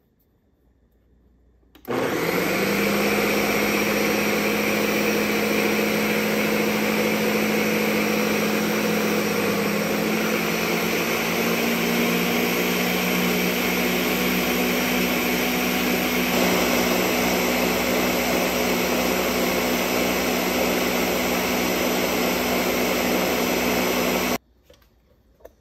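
Ninja countertop blender motor running at full speed, blending grated cheese and pasta water into a sauce. It starts suddenly about two seconds in, its hum rises slightly in pitch about halfway through, and it cuts off abruptly near the end.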